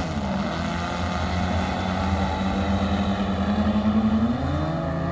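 Twin engines of a radio-controlled C-47 model plane running steadily, then rising in pitch near the end as the throttle is opened for the takeoff run.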